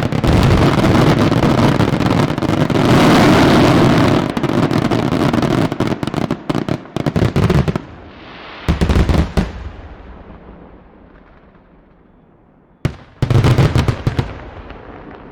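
Aerial fireworks display. A dense, continuous barrage of bangs runs for about the first six seconds, then comes a few separate volleys of loud bangs with echoes dying away between them, and near the end a single sharp bang followed by one more volley.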